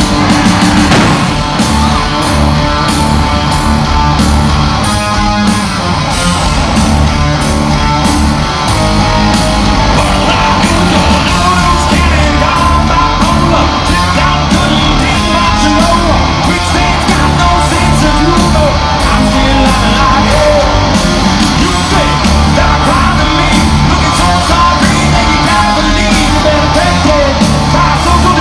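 Live rock band playing loud: distorted electric guitars, bass and drums driving a steady beat, with a singer's voice over them, heard as a concert audience would hear it through the arena PA.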